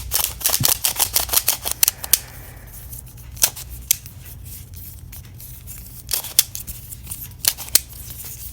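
Plastic Qiyi Qicheng Skewb puzzle being turned by hand, its pieces clicking. There is a quick run of sharp clicks in the first two seconds, then single clicks or pairs of clicks every second or two.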